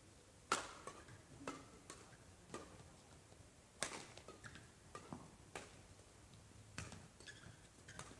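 Badminton rackets striking the shuttlecock in a doubles rally: about a dozen faint, sharp hits at uneven intervals, the loudest about half a second in and near four seconds.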